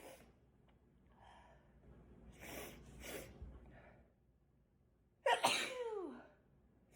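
A person sneezes once, a wet, spraying sneeze that bursts out suddenly about five seconds in, the voice sliding down in pitch at its end. Before it come several quick gasping in-breaths as the sneeze builds.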